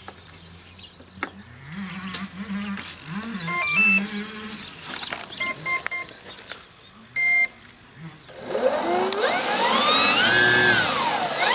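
Electric motor of an RC P-51D Mustang model spinning up its three-bladed propeller on a ground run: a whine that climbs in pitch, holds, drops away and climbs again near the end. After the loose motor mount screws were dealt with, it runs without the earlier rubbing noise. Earlier there are a few short sequences of electronic beeps.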